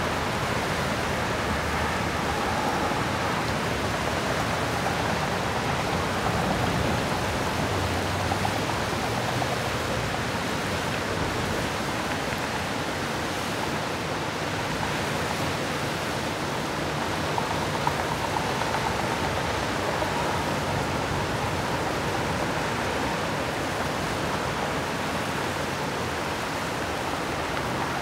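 Swollen creek floodwater rushing through the dam culverts and down the channel, a steady, unbroken rush of running water.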